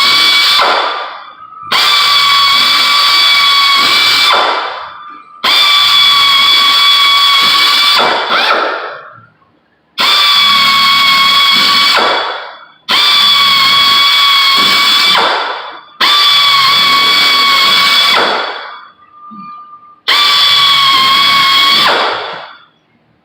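Electric drill pre-drilling holes in a sheet-metal patch panel: about seven bursts of a steady high whine, each two to three seconds long, each winding down with falling pitch as the drill is let off.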